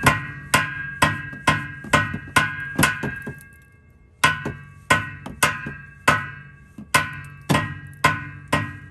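Hammer blows on metal at the aftermarket exhaust of a Honda Civic Type R: about fifteen sharp strikes, roughly two a second, each ringing briefly, with a short pause about three seconds in. The metal is being knocked forward where it rubs against the exhaust and causes a rattle.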